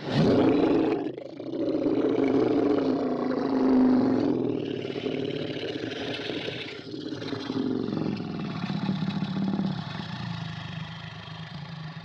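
Monster growl sound effect made from a human voice and edited into a deep creature's groan. It starts abruptly, is loudest over the first few seconds, and carries on a little lower to the end.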